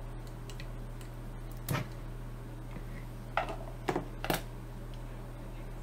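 Small metal hand tools, locking forceps and flush cutters, being handled on a cutting mat: a few light clicks and taps, one about a second and a half in and three close together around three to four seconds in, over a steady low hum.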